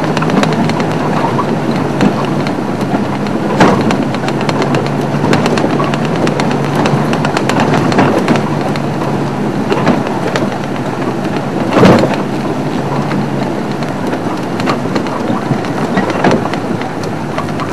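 Open safari vehicle driving over a rough dirt track: the engine runs steadily under the rattle and jolting of the body. Two sharp bumps stand out, one about four seconds in and a louder one about twelve seconds in.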